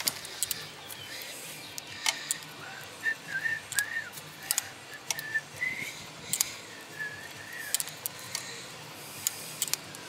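Scattered sharp clicks and taps of parts and tools being handled while the rear brake light switch and its wiring connector are worked on. In the middle, a few soft wavering whistled notes come in short phrases.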